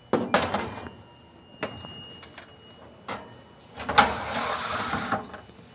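Clanks and knocks of an oven being loaded: a sharp clank at the start, two lighter knocks, then a scraping slide lasting about a second, as of a roasting pan going onto the oven rack.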